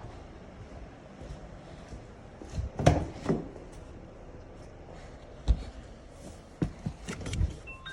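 Scattered knocks and clunks of someone handling a minivan's door and moving about: a loud pair about three seconds in and several sharper knocks near the end.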